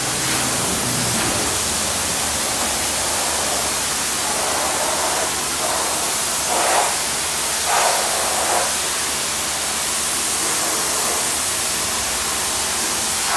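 Self-service car wash pressure-washer wand spraying a steady jet of rinse water, a continuous hiss.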